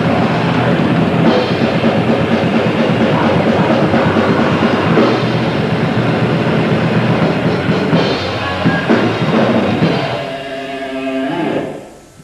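Live grindcore band playing: drums and heavily distorted guitars at full volume. About ten seconds in the playing breaks off into a held, ringing tone that fades and stops as the song ends.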